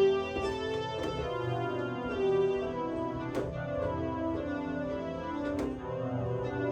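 Instrumental passage of a song: held organ chords, with a few sharp clicks.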